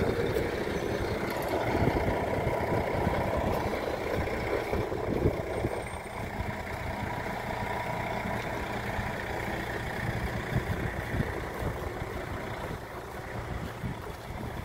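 Bus engines running: a steady low diesel rumble, louder in the first few seconds and easing off later.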